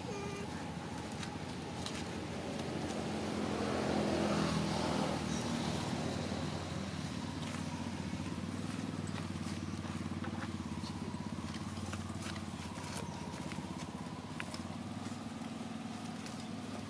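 A motor vehicle's engine, louder as it passes about four seconds in, then fading to a steady hum.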